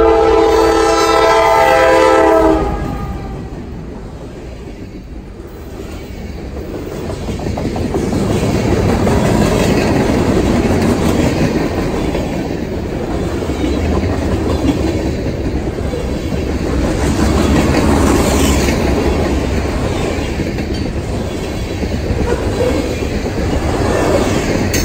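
A train's horn blows a chord of several notes for about two and a half seconds at the start. Then the train passes close by, its wheels rumbling and clattering over the rail joints, louder again from about eight seconds in.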